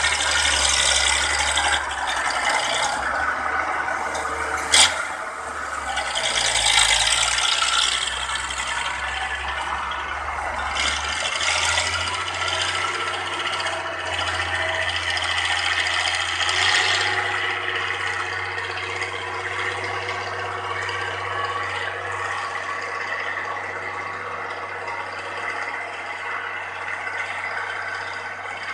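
Fiat 1300 DT Super tractor's OM diesel engine running steadily under load while pulling a plough, fading slowly as the tractor moves away. A sharp click about five seconds in.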